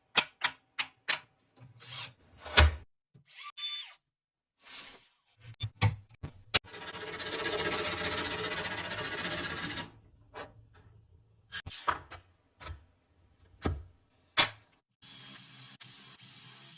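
Separate knocks and taps of tools and wood, with a power tool, likely a drill, running for about three seconds in the middle, and a fainter steady noise near the end.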